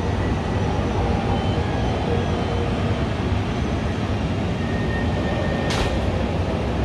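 Steady low rumble of jet aircraft engines across the airfield, with faint thin engine whines and one brief sharp noise near the end.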